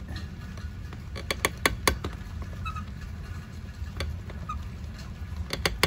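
Sharp metal clicks and faint creaks from an old hose bib's brass valve stem being twisted by hand in the faucet body: a quick cluster of clicks about a second in and a few more near the end. The stem is held fast by old packing and won't come out.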